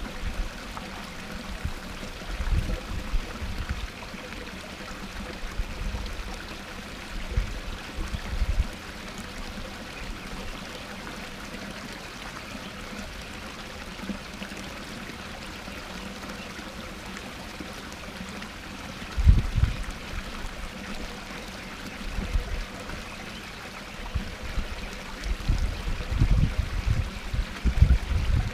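Small rock waterfall splashing steadily into a pond, with a few low rumbles coming and going; the strongest comes about two-thirds of the way in.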